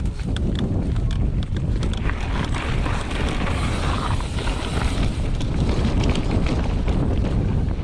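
Mountain bike rolling down a dirt trail: wind rushing over the microphone over the rumble of the tyres on the ground, with a few sharp clicks and knocks from the bike near the start.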